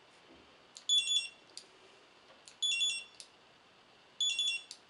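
Motorola RS507 ring barcode scanner beeping three times, each a quick run of high-pitched beeps about a second and a half apart, as programming barcodes are scanned. The quick high multi-beep is the scanner's sign of a good read, a programming barcode accepted.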